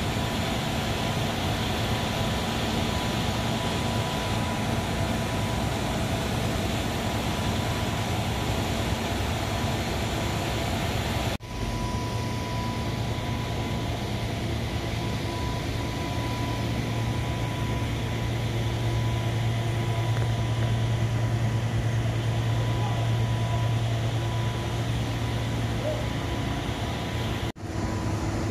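Steady drone of glove-washing plant machinery running, with a low hum and a faint steady high tone. The sound breaks off for an instant about 11 seconds in and again near the end.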